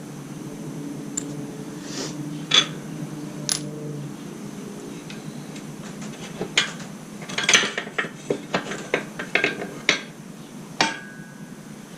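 Metal tools clinking and clanking as they are handled and set down: scattered sharp clicks, coming thickest in a quick run in the middle, with one last clank that rings briefly near the end.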